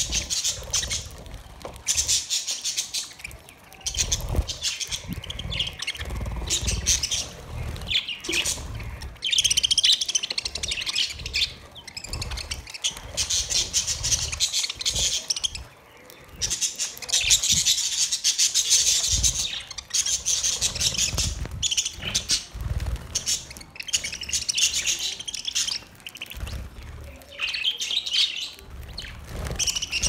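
A flock of budgerigars chattering and chirping continuously in dense, overlapping warbles while they feed, with brief bursts of wing flapping and low thumps as birds flutter about.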